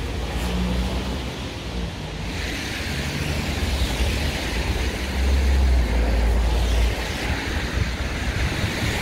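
Street traffic noise: a steady rush of passing vehicles with low rumble, swelling loudest about five to seven seconds in.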